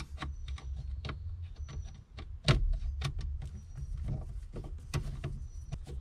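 Screwdriver working screws out of a plastic steering column cover: a run of small irregular clicks and ticks, with a few faint high squeaks and one louder knock about two and a half seconds in.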